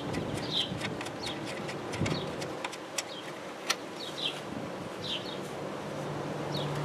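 Scattered small clicks and rattles of hands handling plastic parts and wiring around a car's engine computer. Short bird chirps sound in the background.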